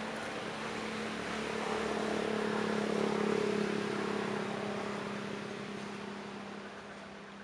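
A motor vehicle passing by, its engine hum and road noise swelling to a peak about three seconds in and then fading away.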